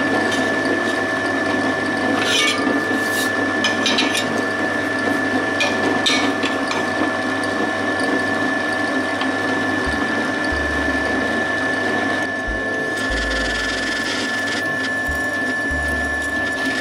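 A workshop machine's electric motor running steadily with a constant whine, with short scraping, clicking strokes in the first half as aluminium is worked.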